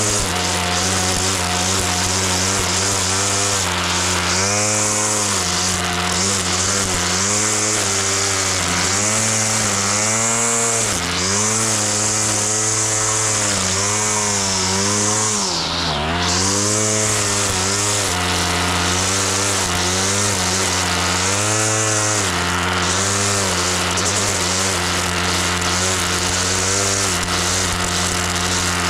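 Small petrol lawn mower engine running steadily, its pitch dipping and recovering again and again as it bogs under the load of cutting grass, with the deepest dip about halfway through.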